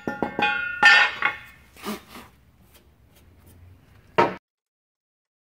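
Steel mounting brackets clanking and ringing as they are handled, loudest in the first second or so. Fainter scraping and knocking follow, then one sharp clank about four seconds in, after which the sound cuts off suddenly.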